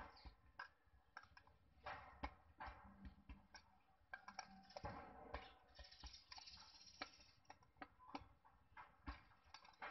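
Faint, irregular metallic clicks and taps of a long hand tool worked onto the valve stems of a Toyota L engine's cylinder head, pressing the new valve stem seals home.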